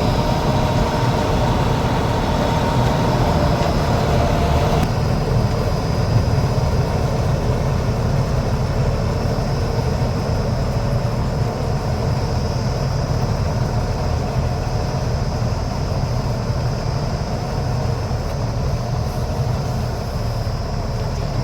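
Combine harvester running steadily at work harvesting paddy: a loud, continuous engine and machinery drone with a few steady whining tones above it. About five seconds in, the higher-pitched part of the noise drops away.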